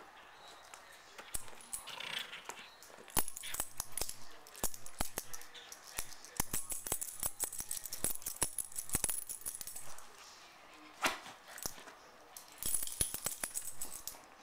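A small dog gnawing on a hard chew bone: rapid runs of clicks and scrapes of teeth on the bone, with its collar tags jingling. There is a pause of about two seconds before the gnawing starts again near the end.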